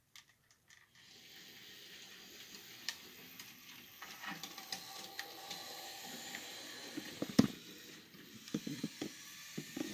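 Model Union Pacific GP20 locomotive running along the track: a faint steady motor hiss and whir with scattered clicks as it rolls, and one sharp click about seven seconds in.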